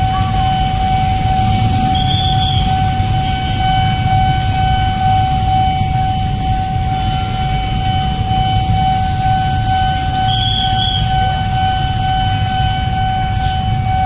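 Railway level-crossing warning alarm sounding a continuous steady electronic tone, over the low rumble of motorbike and street traffic at the crossing.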